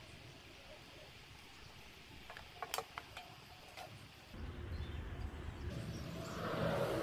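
A few light clicks and taps of stiff PVC sheet pieces knocking together as they are handled, then a low rumble that comes in about four and a half seconds in and grows louder toward the end.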